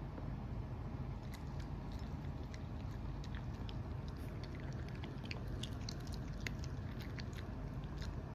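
Toy poodle crunching small pieces of hard food, with irregular sharp crunches starting about a second in, over a steady low hum.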